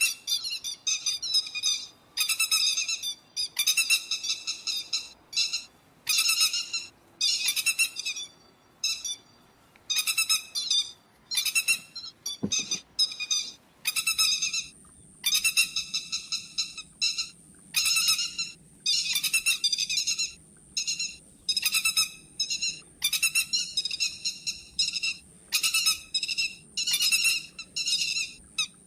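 Pacific golden plover calls, played as a lure recording for night bird-netting: short, high, clear calls repeated about once a second with brief pauses. About halfway a faint steady high whine and a low hum join in, just after a single click.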